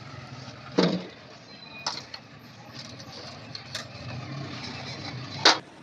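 Sharp metallic knocks of a stainless steel pot being handled: one about a second in, another about two seconds in, and the loudest near the end, over a steady low hum.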